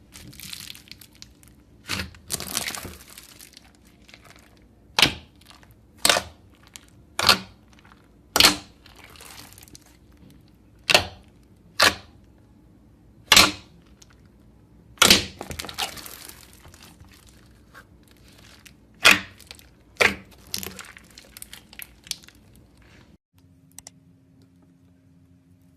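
Slime being squeezed and popped, giving a dozen or so sharp crackling pops at irregular intervals of one to two seconds.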